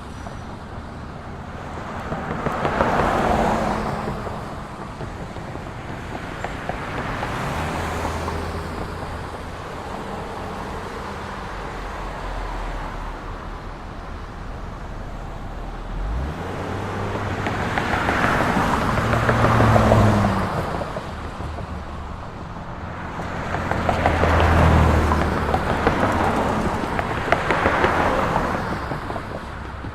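Street traffic: a steady hum of cars with several vehicles passing close by, each swelling and fading, the loudest about two-thirds of the way through; engines heard changing pitch as they speed up and slow down.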